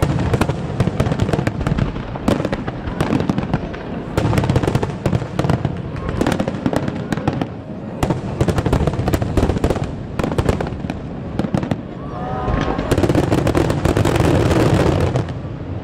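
Fireworks shells bursting in quick, overlapping bangs and crackles, with a low rumble beneath. The barrage is densest and loudest near the end.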